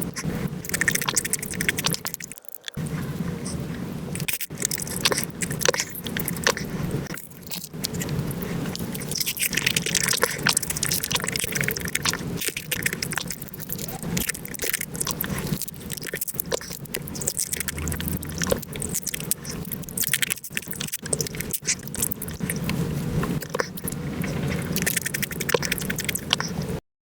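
Eating sounds of soy sauce marinated crab with rice, sped up five times: a dense, rapid stream of chewing, biting, crunching and wet smacking clicks. The sound drops out briefly a few times, most sharply just before the end.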